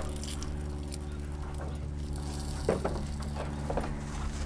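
Trout fillets lifted out of a hot frying pan onto a plastic cutting board as the frying sizzle dies away, over a steady low hum. A dog whines a few times about two-thirds of the way in.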